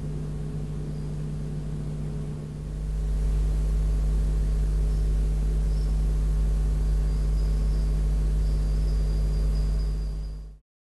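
Steady low hum and deep rumble under a hiss. The rumble swells louder about two and a half seconds in, faint high-pitched tones come and go in the second half, and everything cuts off abruptly near the end.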